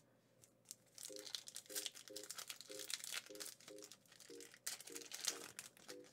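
Foil booster-pack wrapper of Yu-Gi-Oh trading cards crinkling and crackling as it is handled and torn open.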